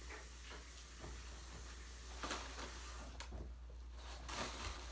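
Quiet room tone: a steady low hum and hiss, with a few faint clicks partway through.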